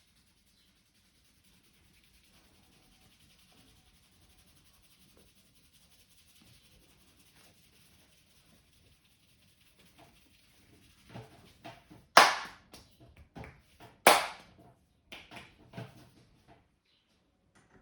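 Hands smacking sharply during a head massage, like the slaps and cupped-hand claps of an Indian barber's massage. After a faint hiss, a quick run of smacks starts about eleven seconds in, and two of them are much louder than the rest.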